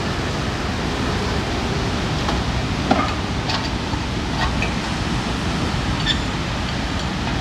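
Steady rushing background noise with a handful of light clicks and taps from hand tools working on a car's rear brake; the sharpest tap comes about three seconds in.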